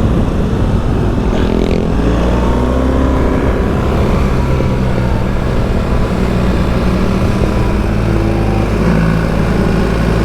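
BMW R1300GS boxer-twin engine being ridden hard on track, its revs rising and falling through the corners, under steady wind and road noise.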